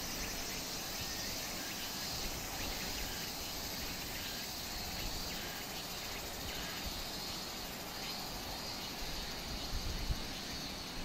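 Steady high-pitched chorus of summer insects over a low outdoor rumble, with a few low bumps near the end.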